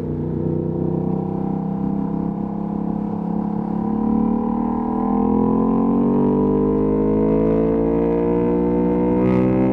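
Ducati Panigale V2S V-twin engine through a Termignoni exhaust, running at low revs and then pulling in a long, smooth acceleration, its pitch climbing steadily from about halfway through.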